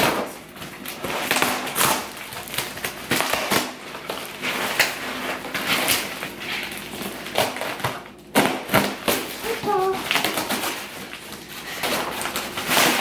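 Packing tape and cardboard being ripped open on a large taped box: an irregular run of tearing, ripping and crackling strokes, the sharpest tear about eight seconds in.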